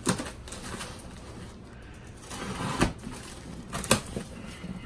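Cardboard shipping box being opened by hand: packing tape pulled off and the flaps folded back, with low rustling and a few sharp snaps, the loudest nearly four seconds in.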